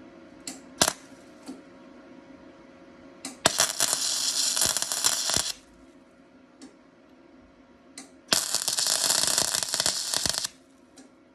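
Welding arc on a sheet-metal patch panel, laying two short welds: two bursts of steady crackling, each about two seconds long, with a few sharp clicks before them.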